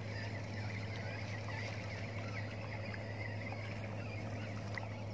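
A steady low mechanical hum under outdoor background noise, with a few faint chirps and ticks.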